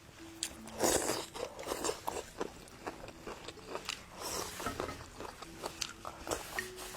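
A person chewing and biting into stir-fried vegetable shoots, close to the microphone: irregular crunches and wet mouth clicks, with a louder bite about a second in.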